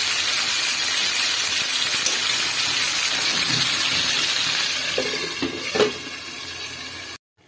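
Fish curry sizzling and bubbling in a frying pan as it is reheated, a steady hiss. Near the end a metal lid is set on the pan with a couple of knocks, and the sizzling fades.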